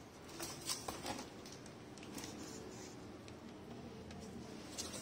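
A few faint handling clicks and scrapes, a cluster about half a second to a second in and one more near the end, over quiet room tone.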